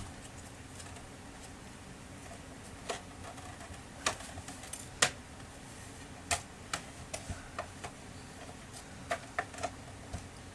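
Scattered sharp clicks and light taps of hard plastic laser-printer casing parts and tools being handled during disassembly, about a dozen at irregular intervals. The loudest come about four and five seconds in.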